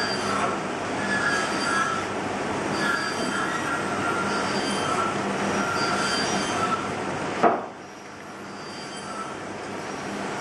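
Sloyd knife whittling a pine Dala horse blank, its strokes giving short squeaks about once a second, over a steady background noise with a low hum. A sharp knock comes about seven seconds in, after which the background noise drops and slowly builds again.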